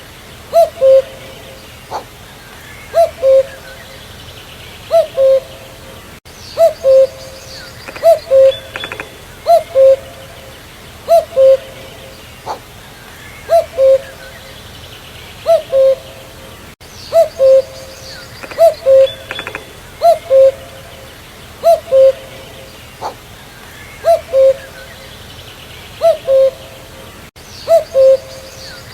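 Common cuckoo (Cuculus canorus) calling its two-note "cu-coo", the first note higher than the second, repeated over and over about every one and a half to two seconds. Other small birds chirp faintly in the background.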